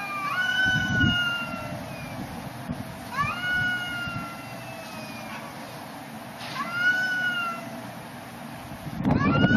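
Cats caterwauling in a fight: four long, drawn-out yowls, each sweeping up quickly, then held and slowly falling, about three seconds apart. The last is the loudest.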